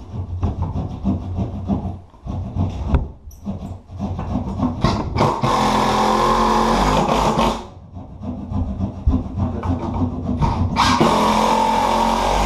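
Scraping and knocking on wood, then a power tool runs in two steady bursts of two to three seconds each, the first about five seconds in and the second near the end.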